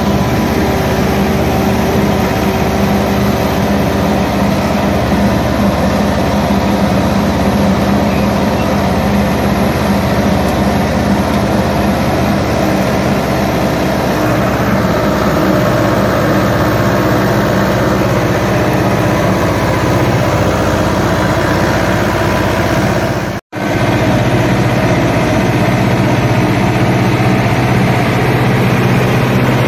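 Tractor engine running steadily, heard from the driver's seat, with a low even drone. The sound drops out for an instant about three quarters of the way through.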